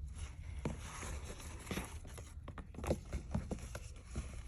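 Soft scattered taps, scratches and rustles from handling, over a low steady hum; the sharpest tap comes about three seconds in.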